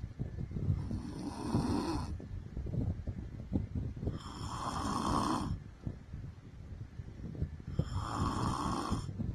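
A woman snoring in her sleep: three loud snoring breaths, about one every three and a half seconds.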